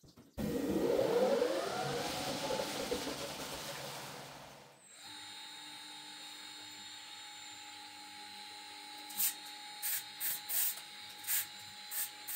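Rug centrifuge whirring loudly for about four and a half seconds, its pitch sliding. After it cuts off comes a steady hum, then about seven short spray hisses near the end.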